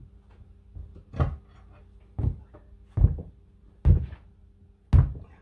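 A sledgehammer striking a tractor rear tyre at the rim, five heavy blows about a second apart.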